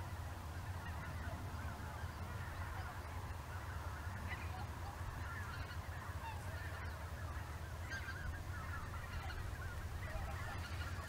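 A flock of greater white-fronted geese calling in flight, many calls overlapping without a break, over a steady low rumble.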